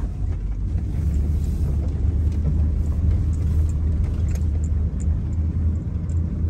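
Car driving slowly over rough ground, heard from inside the cab: a steady low engine and tyre rumble, with a few light knocks and rattles.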